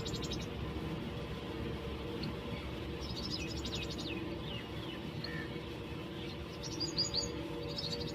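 Sparrows chirping at a nest: short bunches of quick, high chirps, one about three seconds in and another about seven seconds in, over a steady low hum.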